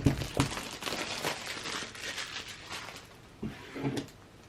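Hands handling an oracle card deck's packaging: a run of quick rustles and crackling clicks, dying down after about three seconds, with a couple of soft knocks near the end.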